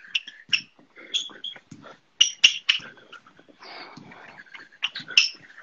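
Fast tennis footwork on a hard, slippery floor: an irregular run of quick shoe taps and squeaks, with a brief shuffling scrape partway through.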